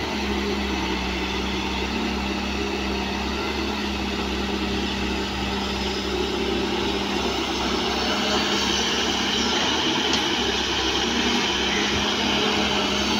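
Diesel engine of a John Deere 5950 wheeled excavator running steadily as the machine digs and swings, growing a little louder in the second half.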